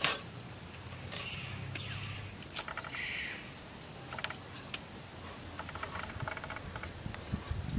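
Climbing perch being scaled and cut on an upright boti blade: a sharp click at the start, then faint scraping of scales against the metal blade with short runs of rapid ticking and clicking.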